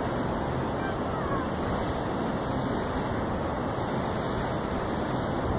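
Steady wind rushing and buffeting across the microphone, a dense low rumble with hiss and no break.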